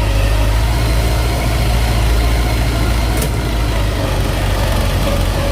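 Diesel engine of rice-harvesting machinery running steadily close by, a loud, deep, even rumble with no change in speed.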